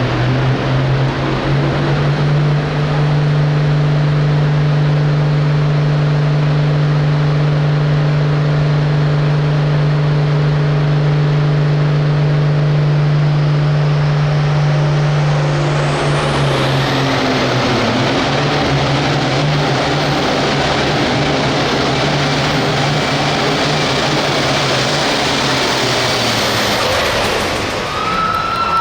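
Hot Farm pulling tractor's turbocharged diesel engine running flat out during a pull, holding a steady, even note. About two-thirds of the way in it turns rougher and noisier, then eases slightly near the end.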